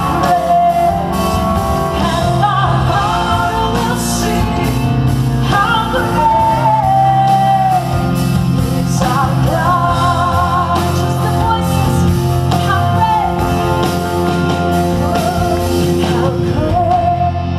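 Live rock band playing: a woman singing lead over electric guitars, electric bass, drums and keyboard, with the reverberation of a large hall.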